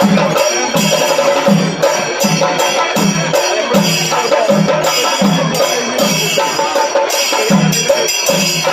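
Percussion music with a steady low drum beat about every half second to two-thirds of a second, over a held tone and rapid metallic, cymbal-like strokes.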